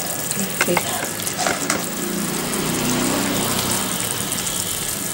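Sugar syrup boiling in a pan on the stove, a steady sizzling hiss. A few light clinks of a steel bowl in the first two seconds.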